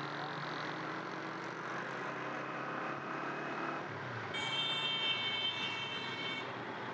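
Steady drone of a motorcycle ride through city traffic: the engine runs evenly under road and traffic noise. Past the middle, a high steady tone sounds for about two seconds.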